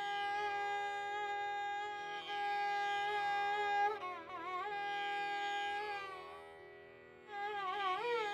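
Carnatic violin music: a violin holding long notes, breaking into wavering, sliding ornaments about halfway through and again near the end, over a steady drone.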